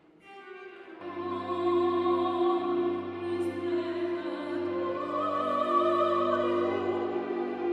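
A woman singing in an operatic style, accompanied by keyboard and cello; the music swells in about a second in and goes on in long held notes over a steady low bass.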